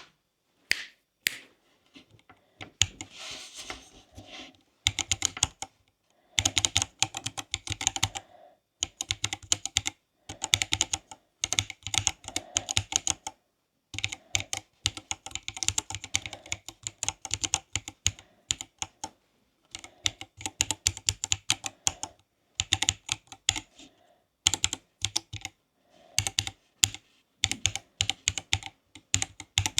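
Typing on a Silakka 54 mechanical keyboard with Greywood switches: bursts of rapid keystrokes separated by short pauses, with a few single key presses at the start.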